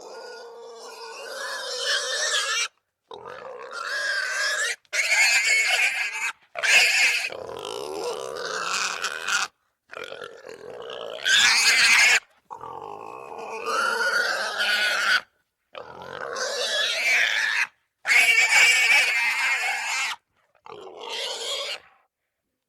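Russian wild boar squealing in a string of separate calls, each about one to three seconds long. The calls are cut apart by short dead silences.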